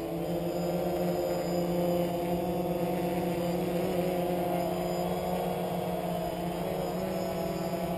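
Quadcopter drone hovering, its electric motors and propellers humming steadily with a slight wavering in pitch.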